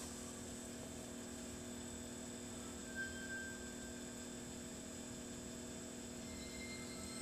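Steady electrical mains hum from the television set, with faint steady high whines over it and a brief soft tone about three seconds in.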